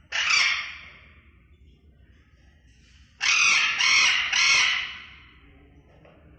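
Green-cheeked conures squawking harshly: one call right at the start, then three in quick succession about three seconds in.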